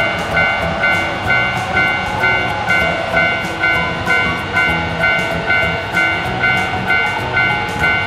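Japanese railroad crossing warning bell ringing steadily, a clanging electronic tone about twice a second, over the running noise of a passing electric commuter train.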